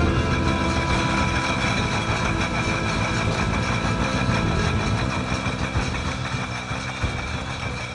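Machinery running steadily: a dense low rumble with a few steady high whining tones, easing down slightly near the end.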